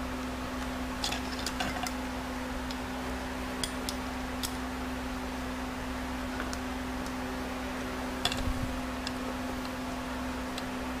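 Scattered light metallic clicks of snap-ring pliers working at a snap ring in an automatic transmission clutch drum, the worn pliers failing to grip, over a steady hum.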